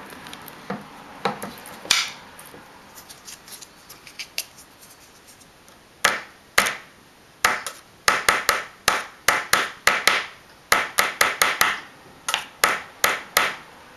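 A translucent rod repeatedly tapping a large Rochelle salt crystal held in a clamp between aluminium foil, in sharp taps of two or three a second from about six seconds in. Before that there are a few faint knocks of handling as the crystal is set in the clamp.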